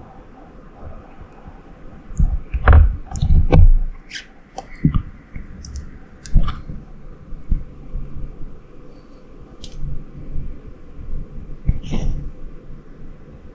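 Irregular clicks and knocks on a clear plastic tub, with low rumbling handling noise. The loudest cluster comes a couple of seconds in, and single knocks follow every few seconds.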